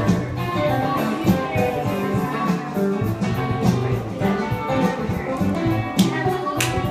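Background music led by a plucked guitar, with a few sharp percussive hits near the end.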